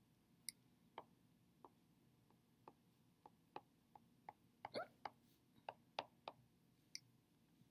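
Faint, irregular ticks and taps of a stylus tip on an iPad's glass screen during handwriting, about fifteen clicks with a quick cluster a little past the middle.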